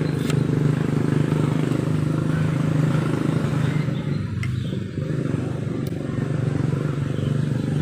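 A small engine running steadily, an even low drone that holds the same pitch throughout.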